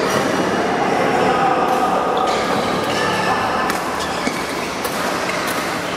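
Badminton hall din: people talking in the background, with a few sharp clicks of rackets hitting shuttlecocks.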